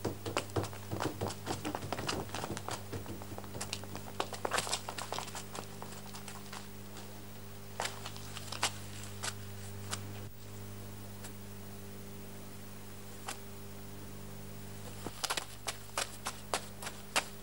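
Dry leaves and undergrowth crackling and rustling under movement and footsteps, in irregular clusters near the start and again near the end. A steady low electrical hum runs underneath.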